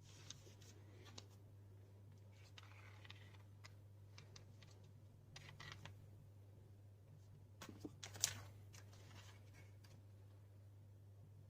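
Quiet handling noise: a few scattered faint clicks and rustles, with one sharper click about eight seconds in, over a steady low hum.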